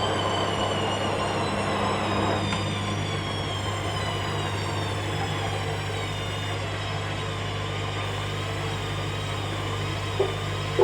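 Hoover Dynamic Next washing machine running, its drum motor whining with a slight waver and slowly falling in pitch over a steady low hum. Two short clicks near the end.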